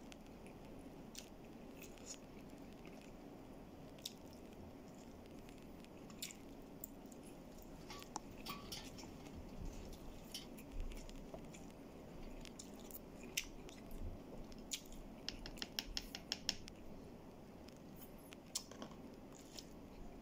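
A plastic spoon clicking and scraping against a plastic food tub as rice and chicken adobo are eaten, with soft chewing, over a steady low room hum. There is a quick run of small clicks about three-quarters of the way through.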